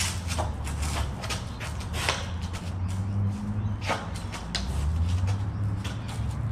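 Scattered short clacks and scuffs from two people sparring with blades, over a steady low rumble.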